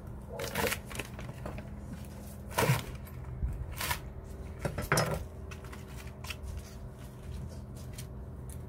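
Chef's knife chopping a thick Korean green onion (daepa) into large pieces on a wooden cutting board: several separate chops, each a sharp knock of the blade on the board, spaced a second or so apart, the loudest about two and a half and five seconds in. Smaller light clicks follow before it goes quieter.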